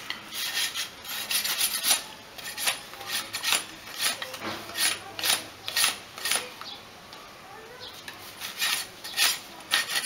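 A broad knife blade scraping along a bamboo splint in short repeated strokes, about two a second, paring it round and thin. The strokes pause for about a second and a half past the middle, then start again.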